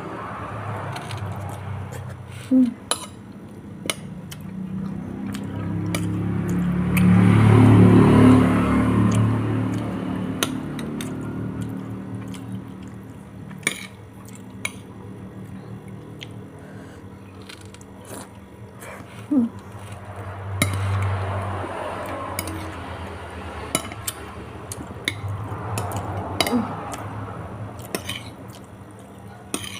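Metal spoon repeatedly clinking and scraping against a plate or bowl while eating, in sharp scattered clicks. A low rumble swells and fades about a quarter of the way through and is louder than the clinks.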